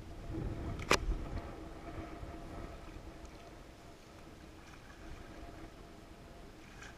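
Double-bladed kayak paddle strokes dipping and splashing in lake water, with a single sharp knock about a second in.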